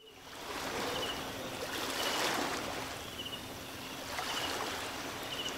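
Steady rush of water fading in from silence and swelling gently, with a faint high chirp repeating about once a second.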